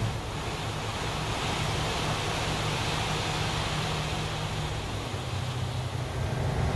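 Dump truck's diesel engine running at a steady speed while the wagon box is raised to unload, under a steady rushing hiss.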